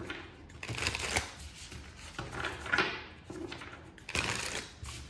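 A deck of cards being shuffled by hand, in three short rustling bursts about a second and a half apart.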